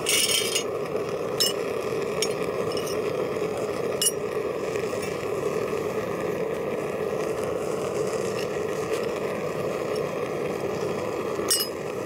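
Vevor smelting furnace running with a steady rushing burner noise while it melts aluminum scrap in its crucible. Metal pieces clink and scrape against the crucible: a clatter right at the start, then single sharp clicks a few times.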